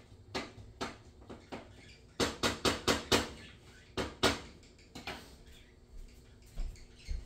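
A spoon clinking and knocking against a cooking pot as apple pie filling is stirred, with a quick run of about six knocks a couple of seconds in and two more about a second later.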